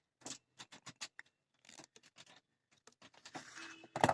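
Small hand tools clicking and scraping irregularly on a circuit board as a TDA2030 amplifier IC is being removed from the home theater's board, ending in a sharp louder click.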